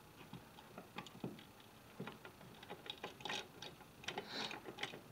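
Faint, irregular clicks and taps of hands working a new light switch and its wires into the wall box.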